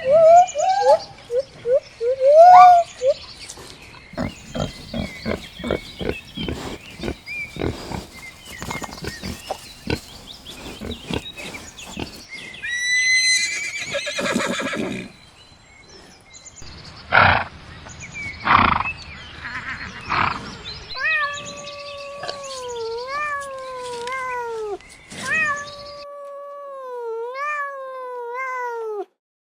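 A series of different farm animal calls one after another: short squeaky calls, a long run of quick clicks, a rising call, two loud noisy bursts, then a string of calls that fall in pitch.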